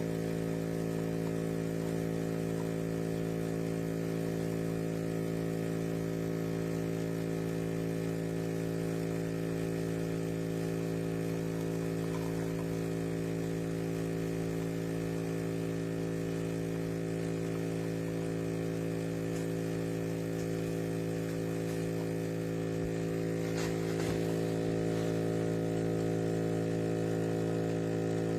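Calphalon Temp iQ espresso machine's pump running with a steady electric buzz. There is a click about two-thirds of the way through, and the buzz grows a little louder after it.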